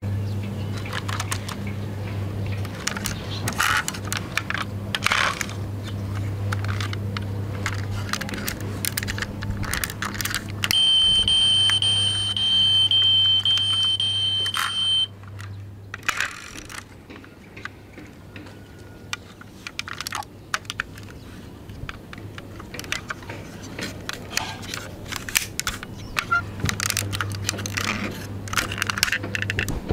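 Plastic toy vehicles being handled: a stream of small clicks, knocks and rattles over a low steady hum. About eleven seconds in, a loud steady high-pitched electronic tone sounds for about four seconds, then stops.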